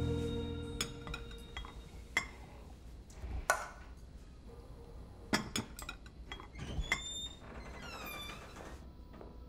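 Dishes, glasses and cutlery clinking and knocking as a dinner table is laid, a dozen or so separate sharp clinks, with a short squeak near the end. Soft ambient music with a ringing bowl-like tone fades out in the first second.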